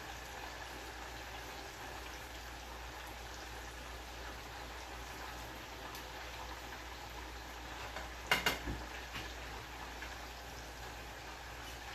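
Beef pieces sizzling steadily in very hot oil in a skillet as they are turned so they cook evenly, with a short clatter of metal tongs against the pan about eight seconds in.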